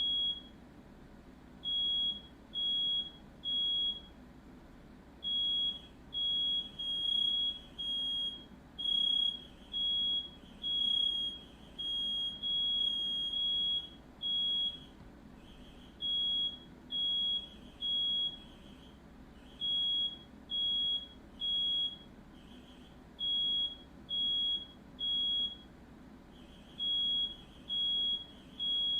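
Smoke alarm sounding, a shrill high beep repeated in groups of three with a short pause between groups, the standard fire-alarm pattern; in the middle stretch the beeps crowd closer together. It is going off because of smoke from a house fire started by a firework.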